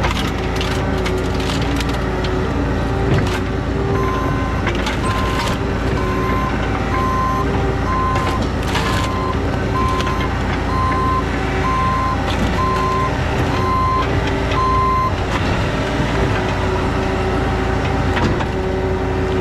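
Diesel engine of a heavy vehicle running steadily, with its reversing alarm beeping about once a second for about eleven seconds while it backs up, starting a few seconds in.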